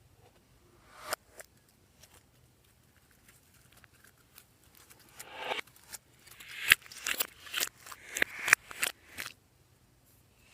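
Slime being worked by hand, giving short sharp pops and clicks: one about a second in, then a quick run of them through the second half.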